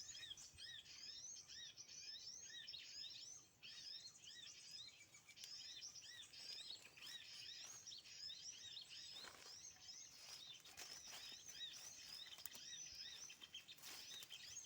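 Fast, dense chirping of small birds, many short arched calls a second, high-pitched and faint: a recorded bird-call lure played through a mobile phone's speaker to draw small birds to birdlime sticks.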